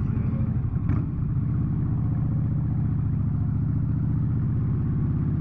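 Motorcycle engine running steadily while the bike rides along in highway traffic.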